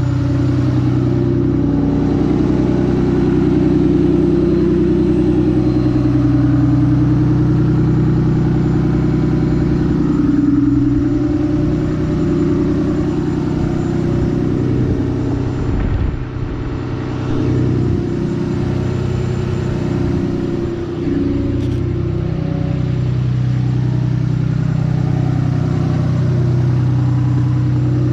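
A 6.7-litre Cummins inline-six turbodiesel running steadily at its raised factory high idle with the exhaust brake engaged, heard from outside the truck. The loudness dips briefly about halfway through.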